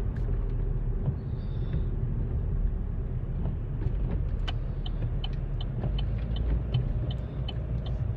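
Car cabin road noise: a steady low rumble of engine and tyres while driving on wet city streets. From about halfway through, a light, regular ticking comes in at roughly three a second.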